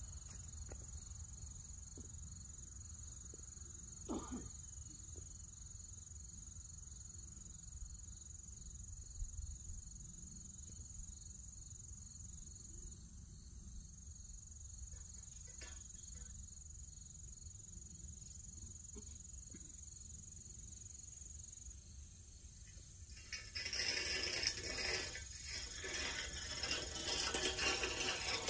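Steady high-pitched insect trilling over a low outdoor rumble, with a few faint knocks. About 23 seconds in, a much louder rough noise starts and runs on to the end.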